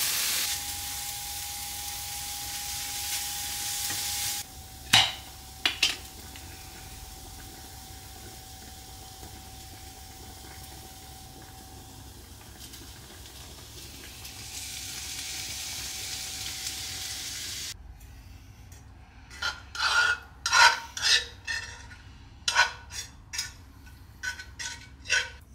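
Beef mince sizzling in a non-stick frying pan and stirred with a silicone spatula. A thin steady tone sounds under it for the first half. The sizzle eases after about four seconds, comes back briefly, then stops two-thirds of the way in. A run of scrapes and knocks follows as the pan is scraped out.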